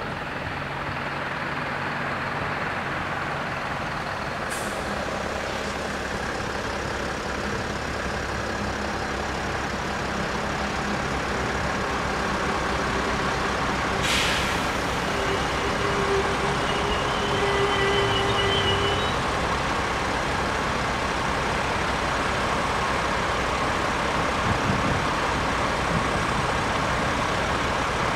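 Level crossing warning bells ringing continuously while a passenger train approaches, with the train noise growing louder toward the end. A few seconds of steady tones sound about halfway through.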